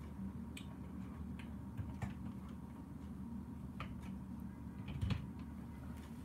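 A handful of light clicks and taps from things being handled at a desk, with a duller knock about five seconds in, over a steady low hum.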